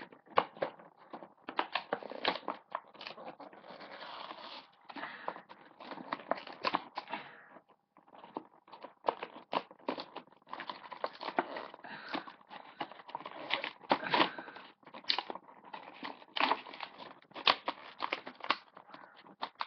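A toy truck's cardboard-and-plastic blister package being torn and crinkled open by hand: an irregular run of sharp cracks and rustling, with a brief pause a little before the middle.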